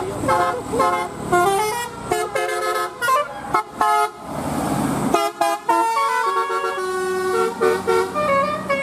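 Telolet bus horns, the multi-tone musical air horns of Indonesian buses, playing quick stepping melodies, with short notes changing pitch several times a second and at times two horn tunes overlapping. A brief hiss comes about four seconds in.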